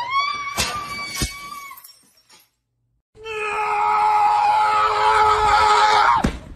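A high, wavering cry with a few sharp clicks, then after a short silence a loud, long, steady scream of about three seconds that drops away suddenly.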